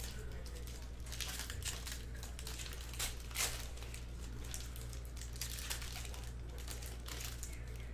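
Plastic trading-card pack wrapper crinkling and tearing in the hands as a pack of Panini Mosaic football cards is opened, with irregular crackles over a steady low hum.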